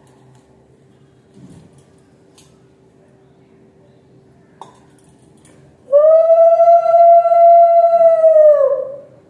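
Conch shell (shankha) blown in one long steady note of about three seconds, starting about six seconds in; the pitch slides up as it starts and sags as the breath runs out. It is sounded for the aarti of a Hindu puja.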